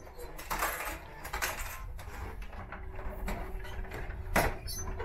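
A hand pushes open a vending machine's clear plastic dispensing flap and takes out a dropped beer can, with light clicks and knocks and one sharp knock near the end. A low steady rumble and hum sit underneath.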